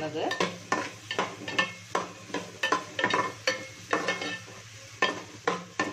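Metal spatula stirring sliced onions and capsicum in a light aluminium pot, scraping and clinking against the metal two or three times a second, with the vegetables sizzling softly in the oil.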